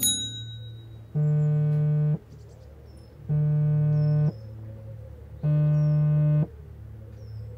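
Smartphone vibrating against a wooden table with an incoming call: three steady one-second buzzes, about a second apart.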